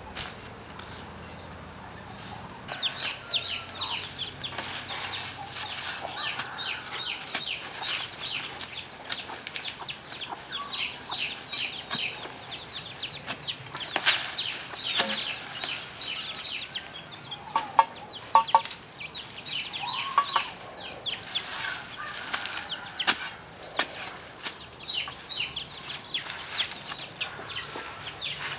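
Birds chirping continuously: quick high notes that fall in pitch, several a second. A digging tool strikes the ground a few times, with a sharp knock about halfway through and a cluster of knocks a few seconds later.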